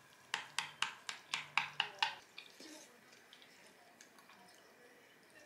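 Slurping hot instant ramyeon noodles: a quick run of about eight short, wet mouth sounds, about four a second, in the first two seconds, then only faint small eating sounds.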